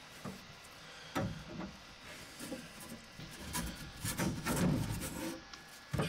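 Scraping and rubbing with a few scattered knocks, the scraping strongest a little past the middle, as a reamer works the cut end of a copper water pipe to clear the sharp burr inside it.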